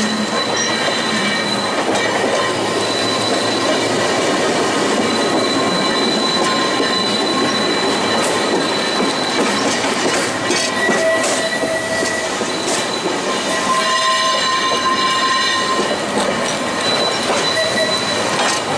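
Manx Electric Railway tram running on tightly curved track, its wheels squealing on the rails in thin high tones that come and go and shift in pitch, over a continuous rumble of wheels on rail.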